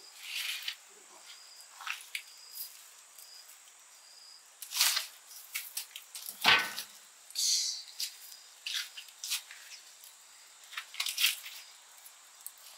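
Irregular crackling, rustling and clicking as sticks of firewood and dry corn husks are handled and pushed into an open wood fire under a large cooking pot, with one louder wooden knock about six and a half seconds in.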